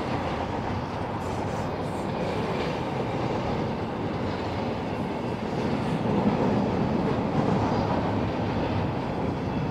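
Double-stack intermodal container cars of a freight train rolling past: a steady rumble of steel wheels on the rails, a little louder about six seconds in.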